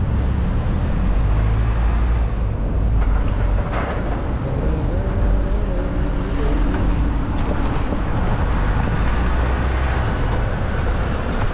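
City street traffic heard from a moving bicycle, under a steady low rumble of wind and road noise on the microphone.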